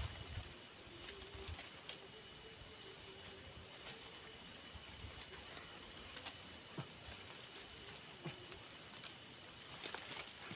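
A few short knocks and scrapes of a bamboo pole being worked as a lever against soil and a pasak bumi root as it is pried out of the ground. A steady high-pitched drone runs under them.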